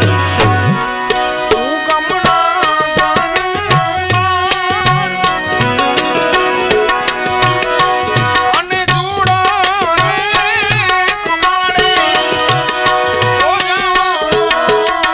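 Live Gujarati devotional folk music with no singing: tabla keeps a steady rhythm under a held, wavering melody from harmonium.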